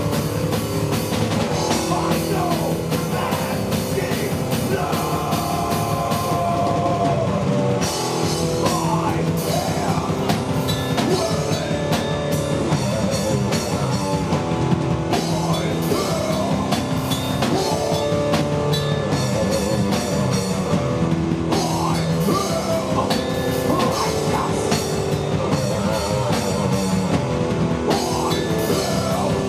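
Live heavy rock music: electric guitar playing over a drum kit, with bending pitched notes.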